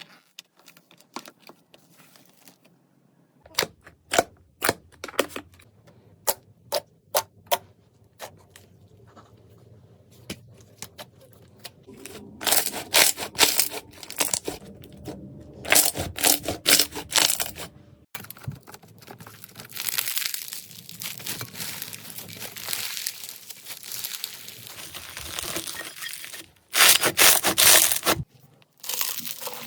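Slime being handled, poked, squeezed and stretched: a run of sharp clicks and pops at first, then denser crackling and crunching passages, the loudest near the end.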